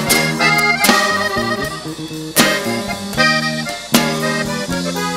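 Live band music led by a button accordion playing a melody, over bass, guitar and drums, with sharp drum accents about every second and a half.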